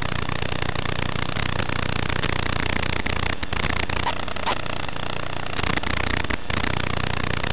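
Steady static hiss with a low buzz underneath, the audio channel of an analog FPV video link as recorded by the goggles while the signal breaks up. There are brief dropouts about three and a half and six and a half seconds in.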